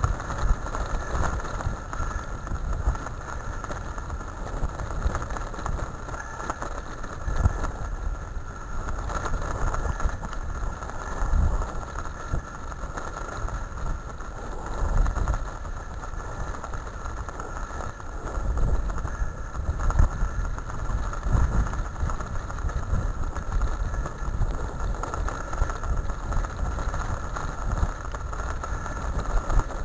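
Wheels of a husky team's rig rolling over a gravel forest track: a steady low rumble with irregular jolts and bumps, and wind on the microphone.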